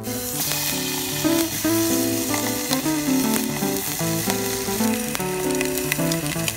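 A thick-cut slab of bacon sizzling as it is laid in a hot pan, the hiss starting as it touches down and then frying steadily. Background music plays underneath.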